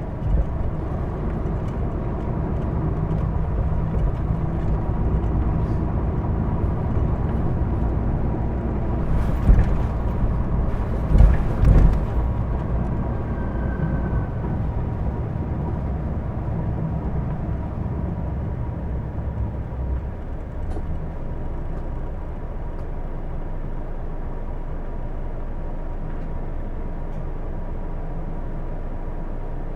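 Hino Blue Ribbon II city bus running, heard from inside the cabin: a diesel drone with a thin, steady high whine through it. There are a few loud knocks about ten seconds in. The running sound settles a little quieter and steadier in the second half.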